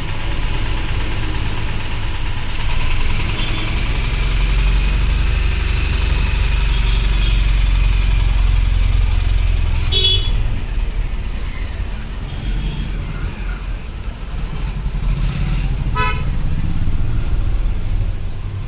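Street traffic: a steady low vehicle engine rumble, with a horn tooting briefly twice, about ten seconds in and again near sixteen seconds.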